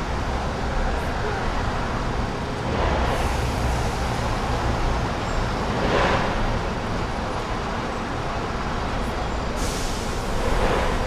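City street traffic: a steady low rumble of engines, with louder swells of passing vehicles about three times.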